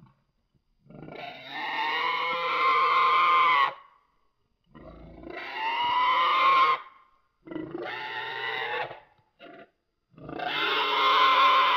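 Modified pig squeals and grunts processed into the cries of an infected Parasaurolophus creature. Four long, harsh, pitched calls of about two to three seconds each, with a short blip before the last one, which is still sounding at the end.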